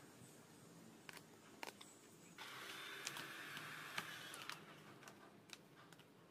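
Electric heat gun switched on about two seconds in, blowing with an even hiss and a faint steady whine for about two seconds, then switched off and winding down. Scattered light clicks and crinkles of vinyl sticker film being handled.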